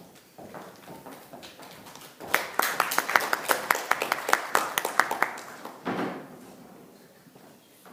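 A small audience clapping for about four seconds, with single claps standing out, then dying away.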